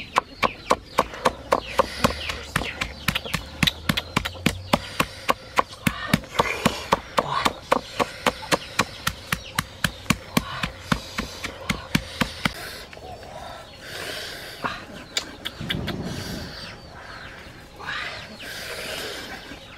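Chopping, most likely a knife or cleaver on a cutting board: a quick, even run of sharp strikes, about three a second, that stops about twelve seconds in. Softer, scattered sounds follow.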